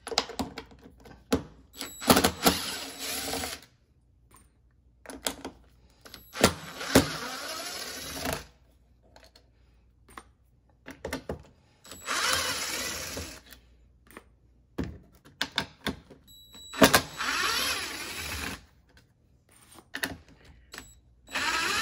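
Cordless drill-driver backing Phillips screws out of a loudspeaker's metal amplifier plate, running in about five short runs of a couple of seconds each, a screw at a time, with clicks and knocks of the bit and screws between runs.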